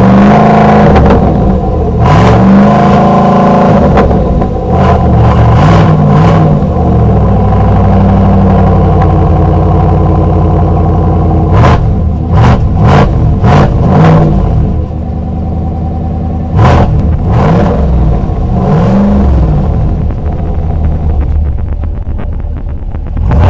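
A Chevrolet Silverado's 6.2-litre naturally aspirated V8 running loud and being revved several times, the pitch rising and falling with each blip. There is a cluster of sharp cracks about halfway through.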